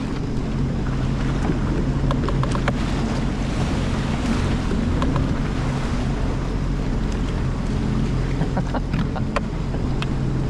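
Sea-Doo GTX 230 jet ski running with a steady engine drone, with water and wind noise on the microphone.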